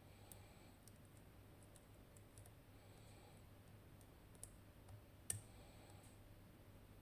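Faint, scattered clicks of a lock pick working the split wafers of a Tokoz Tech lock under tension, with one sharper click a little over five seconds in.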